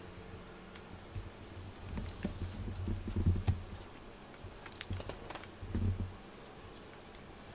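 A cat licking and nuzzling another cat's fur close up: a scattered run of small wet clicks and rustling, with a few dull bumps as the cats shift against each other, loudest about halfway through and again near the end.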